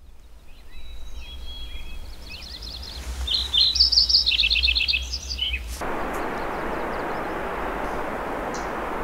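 Songbirds chirping and trilling, loudest around four to five seconds in, over a faint low rumble. Just before six seconds the sound cuts to a steady rushing hiss.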